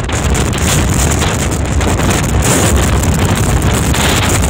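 Strong wind buffeting the microphone on a ferry's open deck in a storm-tossed sea: a loud, rough rush that wavers in gusts.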